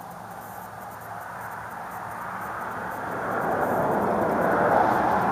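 Engine noise of an approaching vehicle, swelling steadily louder from about a second and a half in.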